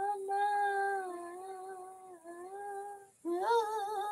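A woman singing a long held wordless note with no accompaniment. The note dips briefly about two seconds in, then holds again before breaking off. Near the end she goes into a wavering hummed line.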